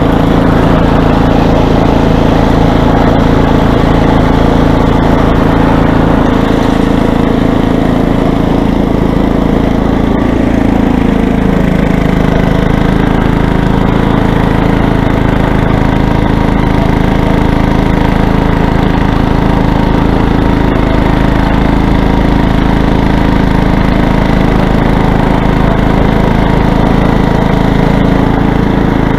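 Toro snowblower engine running steadily and loud, its note shifting slightly about ten seconds in.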